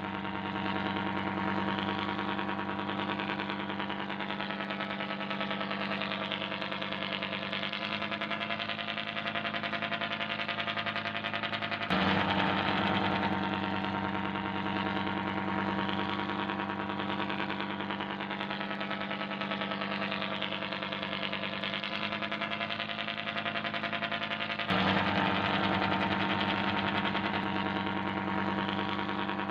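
Simulated ship diesel-engine sound: a steady, even engine drone that jumps suddenly a little louder twice, about 12 and 25 seconds in, as the recorded loop starts over.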